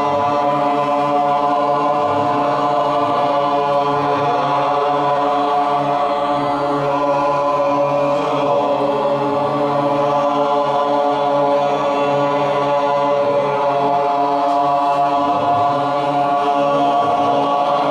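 Group chanting a mantra together, many voices held on one long steady drone, with small glides in pitch.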